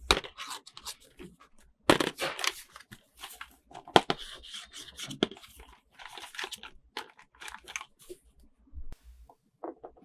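Toy packaging being torn open and handled: irregular tearing and crinkling, with a sharp peak about four seconds in.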